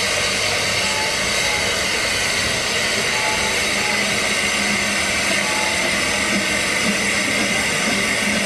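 Narrow-gauge Manning Wardle 2-6-2T steam locomotive No.190 'Lyd' moving slowly along the platform, giving off a loud, steady hiss of steam.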